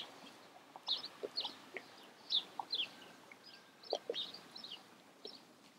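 Birds calling: a string of short, high chirps that fall in pitch, two or three a second, with a few short lower notes among them.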